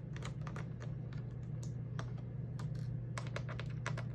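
Irregular light clicks and taps of a small screwdriver and plastic parts as the screws holding a laptop's LCD panel to its lid are undone, over a steady low hum.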